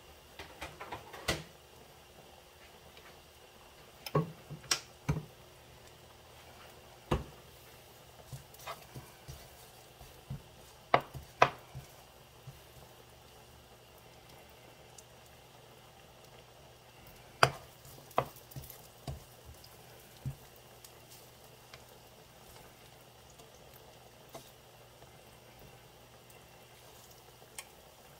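Chopped pepperoni frying in oil in a skillet with a faint steady sizzle. Scattered light clicks and knocks come from the pan as the slices are moved around, bunched in the first half and again a little past the middle.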